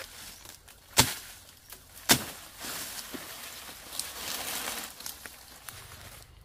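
Two sharp machete chops into a green plant stalk, about a second apart, followed by leaves and foliage rustling for a few seconds as the cut stalk is pulled free.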